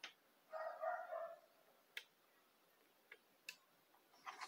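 Faint, scattered light clicks, about four over the last few seconds, from a Philco PMC16 sewing machine's needle and rotary hook mechanism as it is turned slowly by hand. The needle passes the hook without striking it, so the timing is right. A faint, short higher-pitched sound comes about half a second in.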